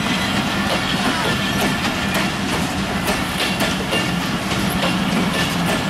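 Broad-gauge passenger coaches rolling past close by: a steady, loud run of wheel-on-rail noise with irregular clicks and clacks as the bogies cross the rail joints.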